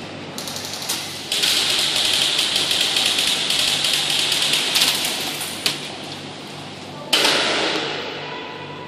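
Airsoft guns firing long full-auto strings, a fast clatter of shots that runs for several seconds. A second sudden loud burst comes about seven seconds in and tails off.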